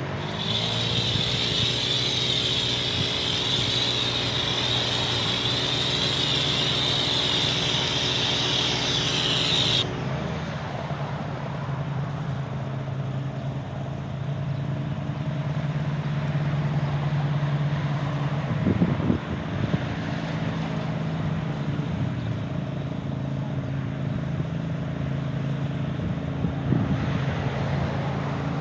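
Pressure washer spraying: its motor spins up at the start and a loud hiss of spray runs for about ten seconds, then both cut off suddenly when the trigger is released. A low steady hum continues after it stops.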